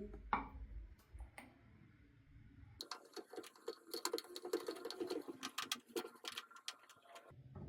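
Faint, rapid, irregular clicking and light scraping of a plastic shower head being screwed by hand onto the shower arm's taped thread, starting about three seconds in and lasting about four seconds.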